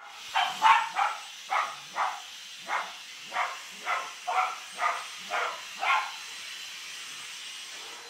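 A dog barking at a vacuum cleaner hose, about a dozen sharp barks at roughly two a second, stopping about six seconds in. A steady airy hiss runs underneath.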